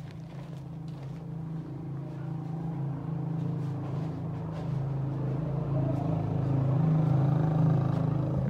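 A passing motorcycle's engine running steadily as it approaches, growing louder until near the end.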